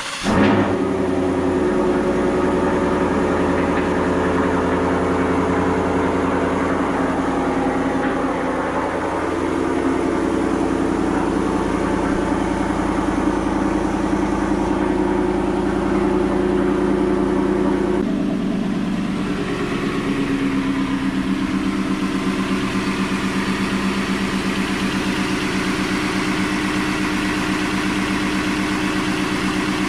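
Ford F150's 5.0 V8 with aftermarket Corsa exhaust cold-starting and running at a steady fast idle. The sound changes abruptly about 18 s in, to a lower, steadier idle.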